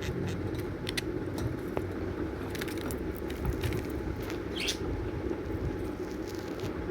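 Pet budgies in a cage making scattered small clicks, with one short chirp about four and a half seconds in, over a steady low background rumble.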